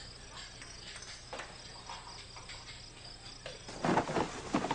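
Crickets chirping steadily in the background, then near the end a short cluster of thuds and rustles as books tumble onto the cobblestones.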